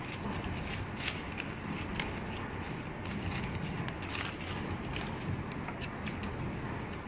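Paper label backing strip rustling and crinkling as it is handled and threaded through the rollers of a labeling machine, with scattered light clicks and taps from the machine parts.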